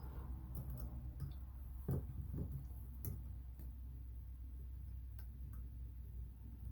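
Faint, irregular small clicks and light taps of a screw and tool on a bathroom faucet handle as the handle screw is worked into its thread.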